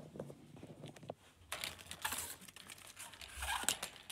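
Faint rustling and crinkling with scattered light clicks and knocks.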